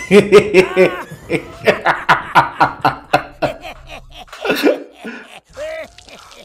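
A man laughing hard in quick, loud bursts for about four seconds, followed by a few shorter scattered vocal sounds.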